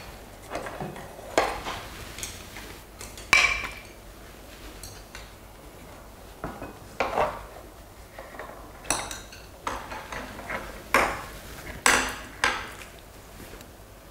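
A metal ladle knocking against a pot and ceramic bowls as stew is served, with chopsticks clinking among the dishes. There are about a dozen irregular clinks and knocks, some ringing briefly.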